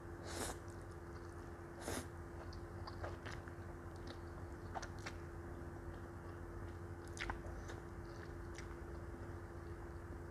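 Close-miked eating of Samyang Rose instant noodles: two slurps in the first two seconds, then scattered wet mouth clicks of chewing, over a steady low hum.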